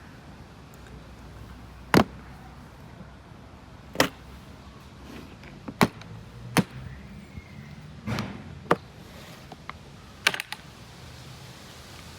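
Sharp clicks from a Smith & Wesson 9mm pistol being handled and taken apart, one every second or two, with a quick pair of clicks near the end.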